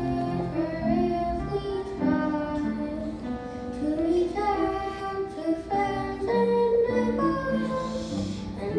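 Children's choir singing a song together, over an instrumental accompaniment that holds steady chords beneath the voices.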